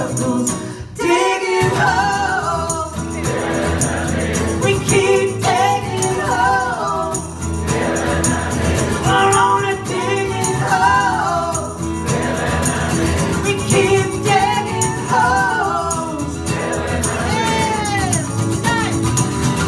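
A live folk song: two women's voices singing over instrumental accompaniment.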